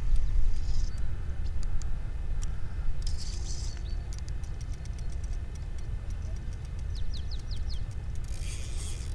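Spinning reel on a feeder rod being wound in, giving a run of fast light clicks over a steady low rumble. A few short high chirps come near the end.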